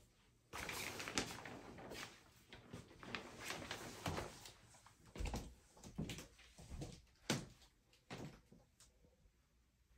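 Shower curtain being pulled aside along its rod: fabric rustling and rings sliding, with a few sharp clicks.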